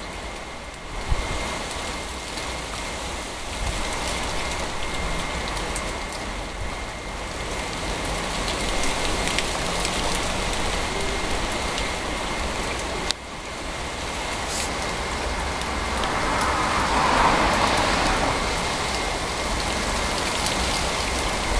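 Steady rain hiss with a low rumble underneath. There is a single sharp knock about a second in, and the hiss swells about three-quarters of the way through.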